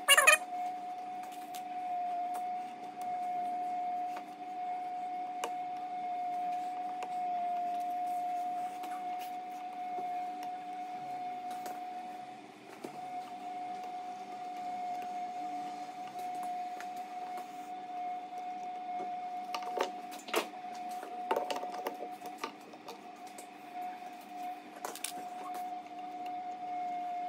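Small metallic clicks and ticks of piston rings being spread and slid into the grooves of a Classic Mini A-series piston, over a steady high-pitched hum. The clicks come in a cluster near the end.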